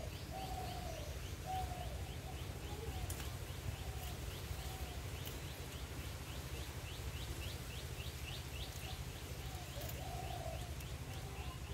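Birds calling: a rapid, even series of short high chirps, about three a second, with a low cooing that comes and goes, over a steady low background rumble.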